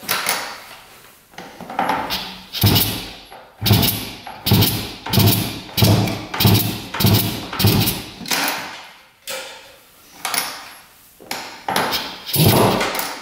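Kick-starter of a 1967 Yamaha YL1's 100cc two-stroke engine being kicked over again and again, about two thumps a second through the middle and a few more near the end, with the engine not catching. The kicker has just been re-welded after breaking several times.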